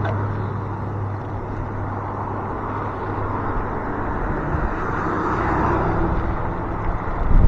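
Wind rushing over the microphone on a moving e-bike, with a steady low hum underneath. A passing vehicle fades away in the first second, and a hard gust buffets the microphone near the end.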